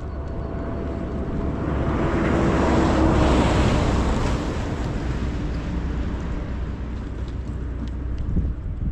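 A motor vehicle driving past on the road, its engine and tyre noise swelling to a peak about three seconds in and then fading away.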